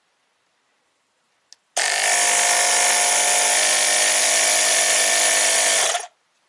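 Motopressor Minipump digital tyre inflator switching on with a click, its compressor running pretty loud and steady for about four seconds, then cutting off suddenly.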